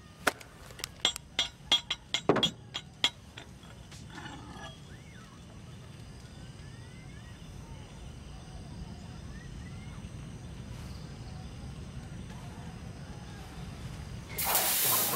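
About ten sharp metallic clicks and clinks in the first three seconds as rifle cartridges and gear are handled, then a steady low rumble. A sudden loud rushing noise breaks in near the end.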